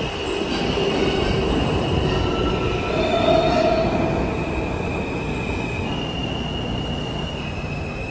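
R160 New York City subway train running past along the platform as it pulls into the station: a steady rumble of the cars under high squealing wheel tones that shift in pitch a few times, growing slightly quieter toward the end.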